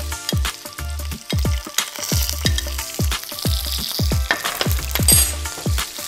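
Boiled taro cubes sizzling as they are spooned into hot mustard oil with fenugreek, mustard and nigella seeds in a frying pan, the pan tossed near the end. Under it runs background music with a deep bass beat whose low notes slide downward.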